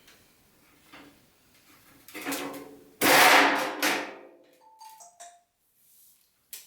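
Knocks and clunks of the dishwasher's door and front panel being handled while the panel screws are taken out: a light knock about two seconds in, then a louder clunk about three seconds in that rings briefly, and a faint short squeak near the five-second mark.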